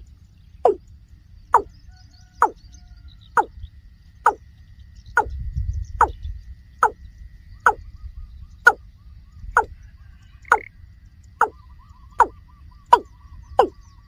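Male watercock calling: a long series of short, hollow notes, each falling in pitch, about one a second. A brief low rumble comes about five seconds in.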